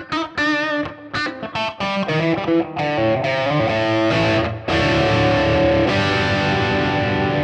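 Electric guitar on its bridge humbucker with overdrive, played through a Kemper amp profile: quick single-note licks with bends and vibrato, then about two-thirds of the way through, distorted chords struck and left to ring.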